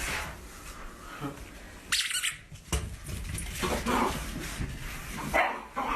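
A pet animal making short squeaky sounds, a few separate bursts.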